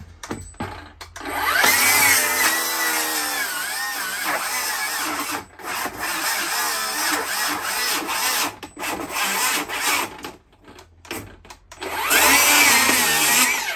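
Handheld electric power tool cutting through material, its motor whine sagging and rising in pitch as it loads up. One long run of several seconds is followed by a few short bursts, then another run near the end.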